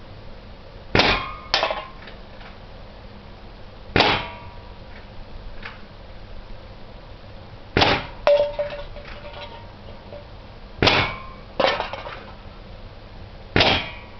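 Walther Lever .177 CO2 air rifle firing five shots about three seconds apart. Three of the shots are followed half a second later by a sharper metallic clang as a pellet hits a can, one with a brief ring.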